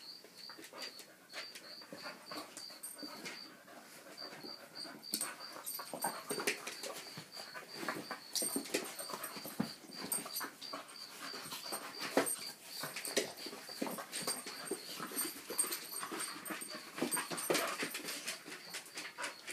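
An Australian cattle dog and a white bull terrier play-fighting, with a steady run of short, irregular play noises from the dogs and scuffling on a rug and wooden floor. It grows busier in the second half.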